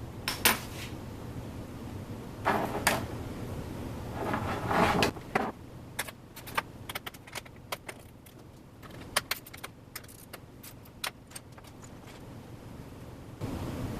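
Handling noise: a few scraping, rustling movements in the first five seconds, then a run of sharp, light clicks and taps, like small metal or hard objects being handled or set down, over a low steady hum.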